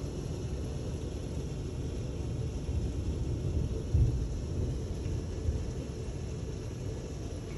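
Heavy rain falling with a low rumble of thunder, and a brief louder low thump about four seconds in.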